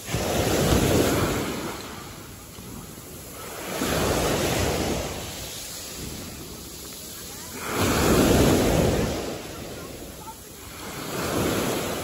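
Waves breaking on a beach: four surges of surf about every four seconds, each swelling and fading over a second or two.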